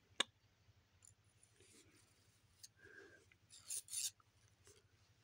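Quiet handling of metal reusable drinking straws: a sharp click just after the start, then soft rubbing and scraping, loudest about four seconds in.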